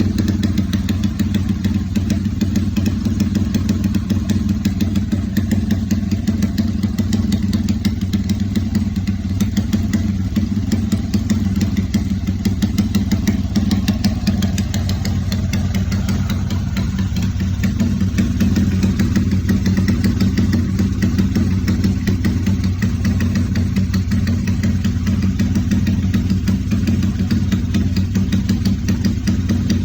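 Honda GL motorcycle single-cylinder engine idling steadily through an aftermarket Fantera-style silencer, a deep even exhaust note with no revving; the low note grows a little fuller about halfway through.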